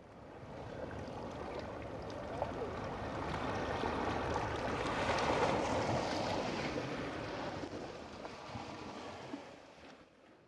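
Seaside ambience of surf washing and wind, an even rushing noise that fades in at the start, swells to its loudest midway and fades away near the end.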